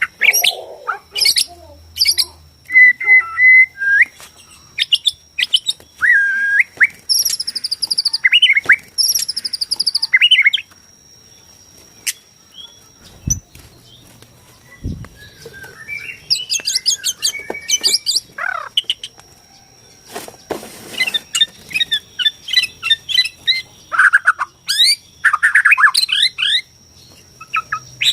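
White-rumped shama (Borneo murai batu) singing, with varied whistled notes, chirps and fast rattling phrases. The song stops for several seconds in the middle, then picks up again. A thin, steady high tone runs underneath.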